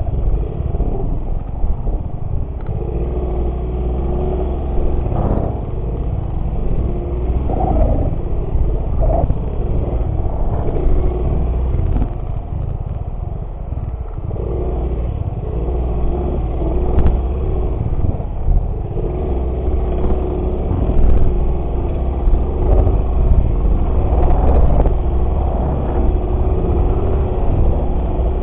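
Motorcycle engine running at a fairly steady pitch while being ridden, under heavy low wind rumble on the microphone. The engine note fades for a few seconds midway, then comes back.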